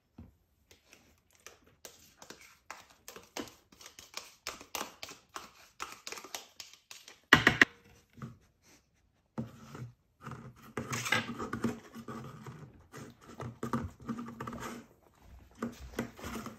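A metal spoon scraping and clicking against a plastic yogurt cup as Greek yogurt is spooned into a blender jar, with one sharp knock about seven seconds in, followed by a denser stretch of scratchy scraping.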